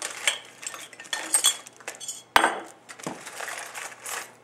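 Rummaging through a bag and setting objects down on a stone counter: scattered clicks and rustles, with a sharp knock about two seconds in as a glass jar is set down with a clink.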